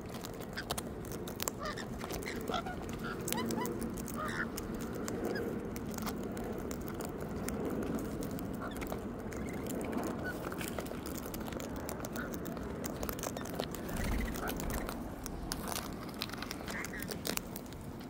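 Sulphur-crested cockatoos and rainbow lorikeets feeding on seed, beaks cracking and picking at the seed with many small clicks, with soft scattered chirps and calls from the birds.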